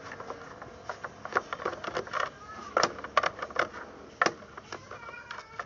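Screwdriver clicking and scraping against a screw and the plastic housing of an air fryer being taken apart, in irregular sharp clicks, the loudest about three and four seconds in.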